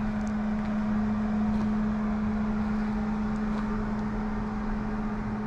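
A compact 25-horsepower tractor's engine running steadily with an even hum, while the tractor carries a heavy skid steer brush cutter.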